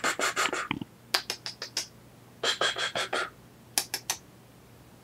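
Cat making rapid clicking, smacking mouth sounds close to the microphone, in four short bursts of quick clicks.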